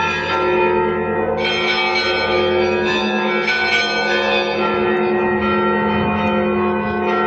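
Russian Orthodox church bells ringing: several bells struck again and again, their tones overlapping and ringing on.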